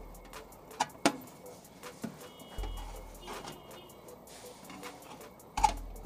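Sharp clicks and dull thumps as a new mica waveguide cover is pressed by hand into its slot on a microwave oven's metal cavity wall. The loudest snaps come about a second in and near the end.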